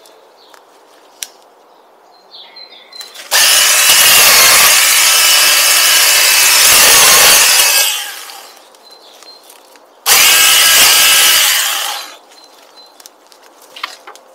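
Power saw cutting through a branch or thin tree trunk in two runs: a long one of about four and a half seconds, then a shorter one under two seconds, each starting and stopping abruptly. Faint snaps and knocks of wood come in between.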